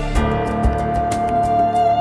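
Background music: a slow instrumental tune with a long held, slightly wavering melody note over a bass line and a steady soft beat.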